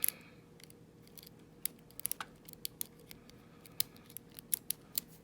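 Irregular light metallic clicks and ticks of a hook pick and tension tool working the pin tumblers in a Master Lock No. 29 padlock's cylinder.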